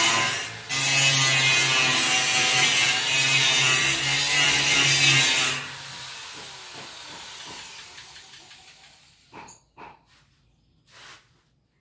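Electric power tool running at full speed, cutting out briefly about half a second in, then switched off a little past five seconds and winding down with a falling pitch over a few seconds. A few faint knocks follow near the end.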